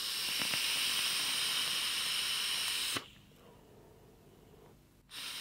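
Eclipse single-coil rebuildable tank atomizer, fired at 70 watts on a 0.2 ohm coil: a steady airy hiss as vapour is drawn through it for about three seconds. Then a faint exhale, and a second, shorter draw starts near the end. The wick keeps up at this wattage and the coil is not drying out.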